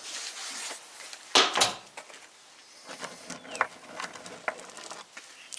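Recovered magnet-fishing finds being handled: a rustle, one sharp knock about a second and a half in as something is set down, then scattered light clicks.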